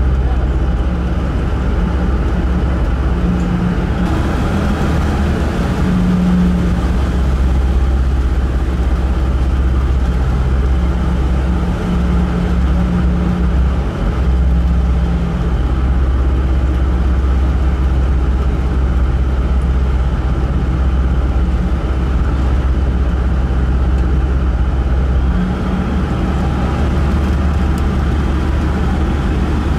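Car ferry's engines running with a steady low rumble as the ship manoeuvres into its berth, the engine note shifting a few times as the power changes.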